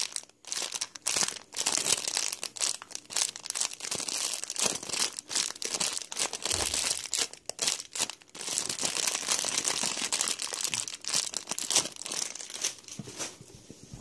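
Plastic packaging crinkling as it is handled, in rapid irregular bursts with short pauses, dying away near the end.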